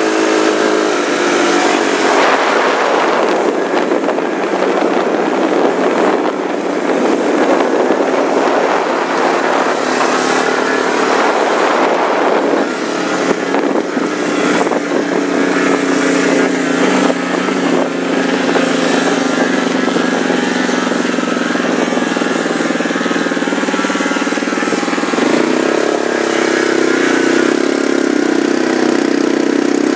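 Two-stroke Yamaha Enticer 340 snowmobile engine running hard under throttle, with a heavy rushing noise over it for the first dozen seconds. Its pitch climbs slowly through the middle and jumps up again near the end.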